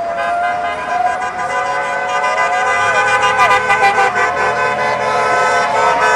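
Several car horns honking at once from passing traffic, long steady blasts overlapping with short toots, getting a little louder.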